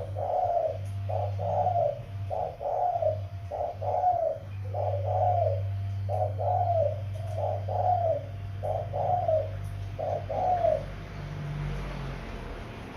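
Young dove cooing in a steady series of about eleven short coos, roughly one a second, stopping near the end: the repeated coo of its circling courtship display. A low steady hum runs underneath.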